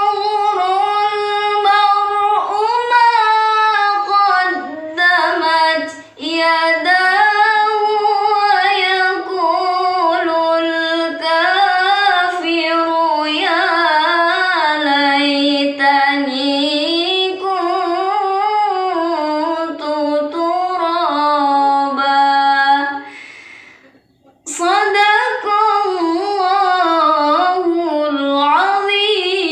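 A young woman reciting the Quran in the melodic tilawah style, drawing out long, ornamented notes that wind up and down in pitch. She breaks off for a breath about three-quarters of the way through, then resumes.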